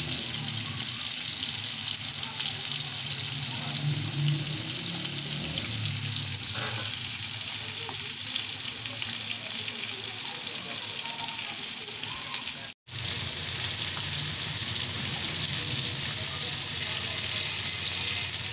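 Minced-meat seekh kababs sizzling steadily in ghee and oil on a flat iron griddle (tawa). The sizzle cuts out for a split second about two-thirds of the way through, then carries on.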